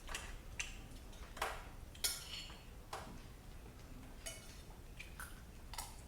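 Eating utensils clicking and clinking against a plate during a meal, about eight short sharp strikes spread unevenly; one about two seconds in rings out briefly.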